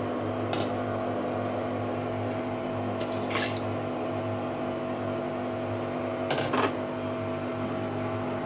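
Washing machine running with a steady hum and water sounds, broken by three short clatters: one about half a second in, one around three seconds in, and one at about six and a half seconds.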